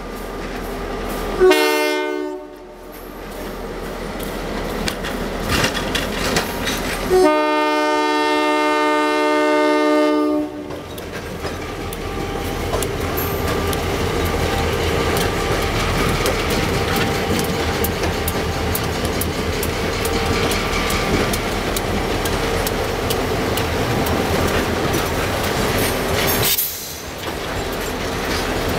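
Diesel freight locomotive's air horn sounding at a grade crossing: a short blast about two seconds in, then a long blast of about three seconds. After that the freight train's cars roll steadily past close by.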